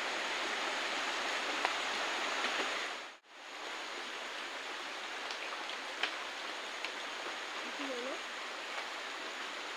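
Steady rushing of a shallow forest stream flowing under a stick footbridge. The sound cuts out briefly about three seconds in. A few light knocks and a short voice sound follow near the end.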